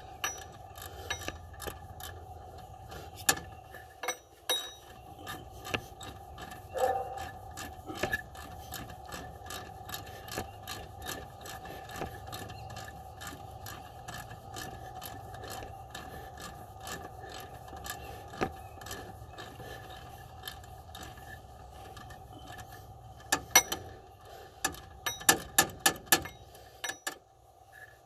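Hand ratchet clicking in quick runs as a bolt is turned in on the engine, with sharper metallic clicks from the tool here and there and a cluster of them near the end. A steady hum runs underneath.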